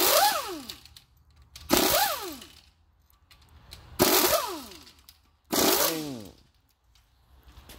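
Four short bursts from a power tool, each starting suddenly with a hiss and a whine that falls quickly in pitch as it spins down.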